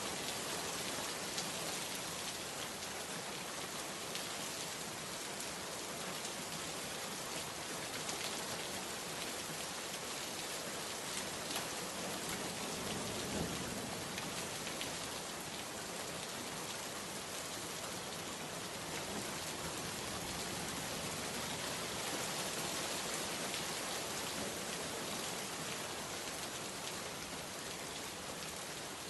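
Steady heavy rain falling and pattering on surfaces, an even hiss with scattered drop ticks.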